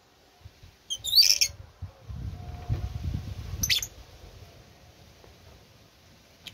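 A bird giving short, high squawking chirps, one burst about a second in and another near four seconds, with a low rumble in between.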